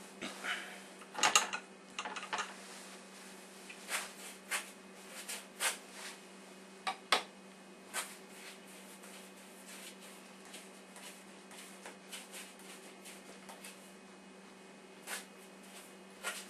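A paintbrush working paint across a canvas: irregular light taps and short scratchy strokes, denser in the first half and sparser later, over a steady low hum.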